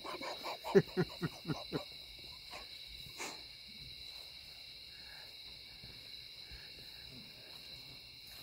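Steady high chirring of night insects, with a quick run of about eight short calls, each falling in pitch, in the first two seconds and a single sharp knock about three seconds in.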